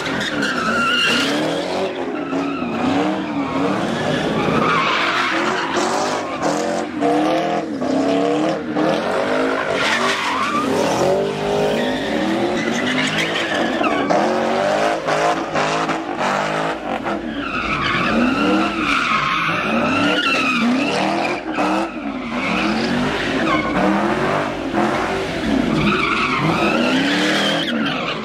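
Cars spinning donuts on asphalt: the engines rev up and down in repeated swells, about one a second in places, while the rear tyres squeal and screech continuously.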